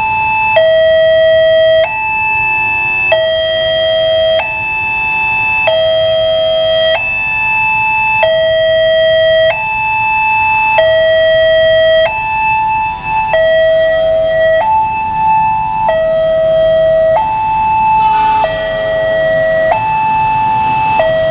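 Railway level-crossing warning alarm sounding from the loudspeaker on the crossing post. It is an electronic two-tone signal that switches steadily between a lower and a higher pitch about every 1.3 seconds. It means the barrier is down and a train is approaching.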